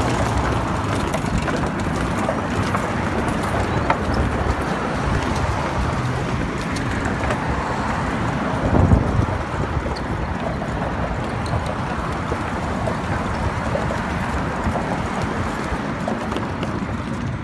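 Kick scooter wheels rolling over a wooden plank deck, a steady rumbling clatter of many small clicks, with road traffic running under it. A louder rumble comes about nine seconds in.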